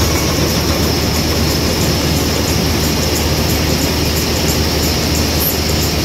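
Combine harvester running steadily while its unloading auger pours paddy into a trailer: a loud, constant machine drone with a thin, steady high whine over it.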